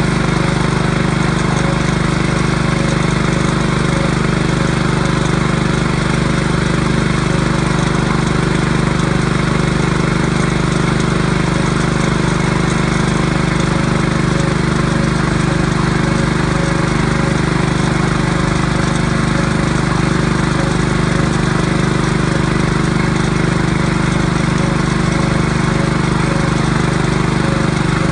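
A small engine running steadily at a constant speed, with a strong low hum and a faint regular pulse.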